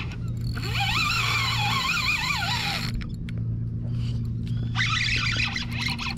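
Boat engine running with a steady low hum. Over it, a high wavering squeal rises and falls for about two and a half seconds, then comes again briefly about five seconds in.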